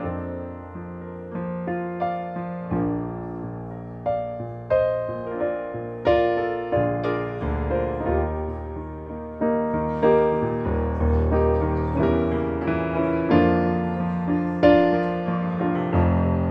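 Piano playing chords over held bass notes, each struck chord ringing and dying away before the next.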